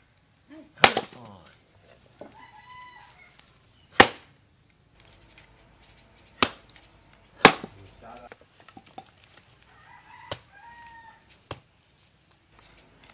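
A hand axe splitting firewood against a wooden log: sharp chopping hits, spaced about one to three seconds apart. A rooster crows twice in the background.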